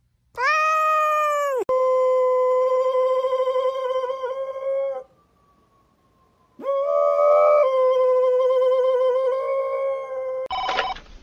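Golden retriever howling: two long, steady howls with a slight waver, about a second and a half apart.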